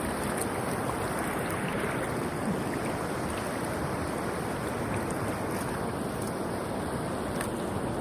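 Steady rushing wash of ocean surf on a beach.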